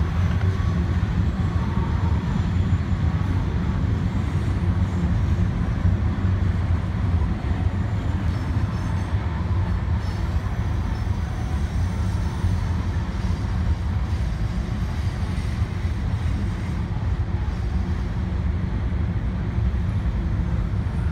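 Freight train hauled by diesel locomotives rolling past at a distance: a steady low rumble of engines and freight cars, with no horn and no sudden sounds.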